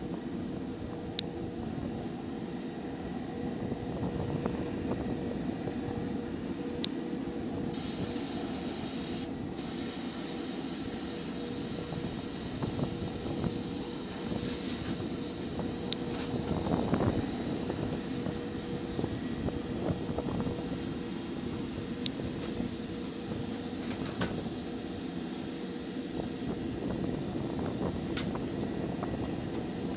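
Steady mechanical drone of flight-line machinery, with a faint hum under it, a few light clicks, and a short hiss about eight seconds in.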